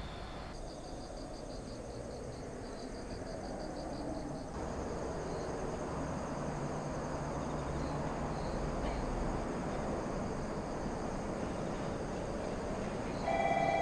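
Insects chirping in a high, steady pulsing trill over low background noise that grows a little louder. Near the end an electronic chime starts.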